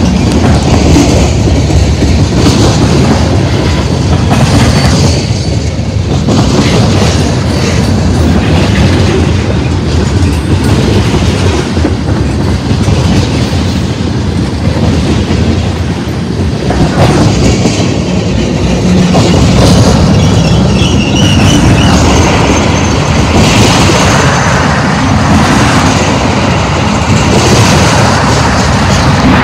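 Freight cars, covered hoppers and tank cars, rolling past at close range: a loud, steady rumble and clatter of steel wheels on the rail, with a brief high wheel squeal about two-thirds of the way through.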